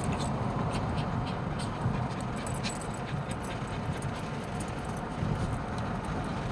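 Small dogs whimpering and fussing in a moving car, over steady road noise.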